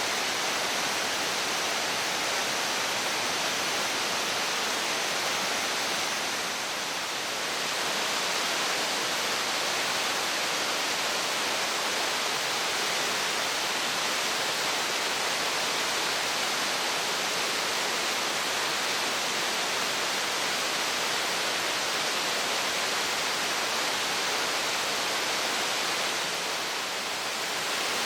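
Rushing roar of Marugami Waterfall, a 76 m three-tiered waterfall, as a steady dense wash of falling water; the level dips slightly about seven seconds in and again near the end.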